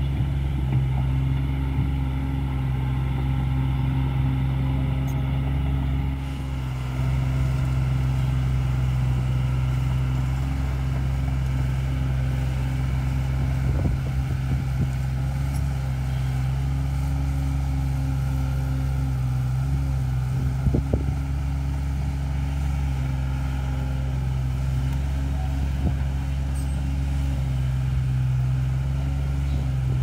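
Komatsu PC30-5 mini excavator's three-cylinder 3D84 diesel engine running steadily as the machine works its boom and bucket in dirt. A few short knocks come about halfway through and again a little later.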